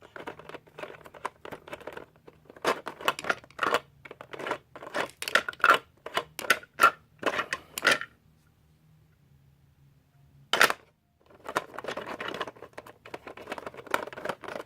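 Plastic toy engine parts clicking and rattling as they are handled and pulled off. There is a quiet pause past the middle, then one sharp click, then more rustling handling.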